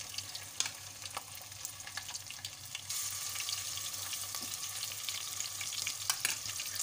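Garlic paste sizzling in hot oil in a steel pot, with scattered pops and clicks. The sizzle gets louder about three seconds in.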